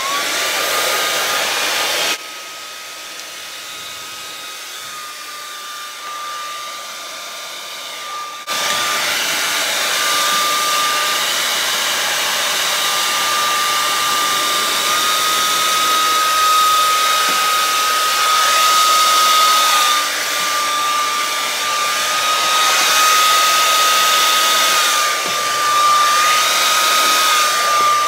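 Handheld hair dryer spinning up as it is switched on, then running with a steady whine and rush of air as it blows wet acrylic paint across a canvas. It drops quieter about two seconds in and comes back up louder about eight seconds in.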